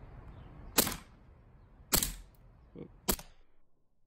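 Elite Force Beretta M9A3 CO2 gas blowback airsoft pistol firing three single sharp shots about a second apart, with a fainter click just before the third.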